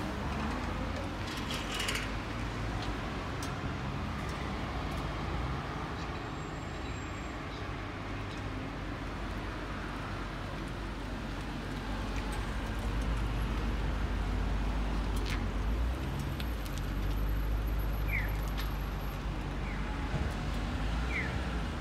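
Toyota Celsior's 4.3-litre V8 running at low speed, a steady low rumble that grows louder about halfway through, with road traffic in the background.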